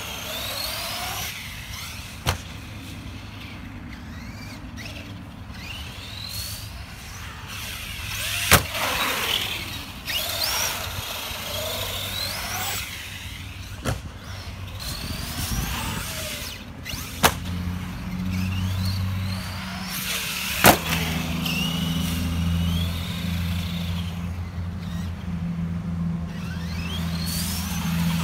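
Brushless electric motor of an Arrma Granite 4x4 BLX RC monster truck whining up and down in pitch as it speeds up and slows, with five sharp knocks from the truck hitting and landing on the concrete. A steady low hum joins a little past halfway.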